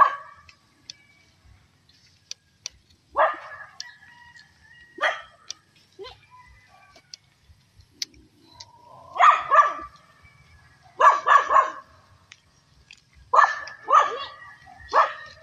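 A dog barking repeatedly, in single barks and quick runs of two or three.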